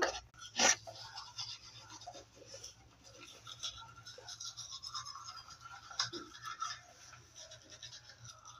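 Manual toothbrushes scrubbing teeth: a faint, scratchy brushing, with one short louder sound under a second in.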